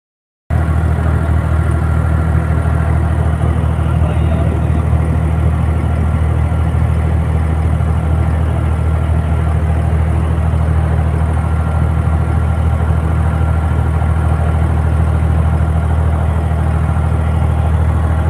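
Boat engine of a wooden abra water taxi running steadily: a loud, even low drone that starts about half a second in.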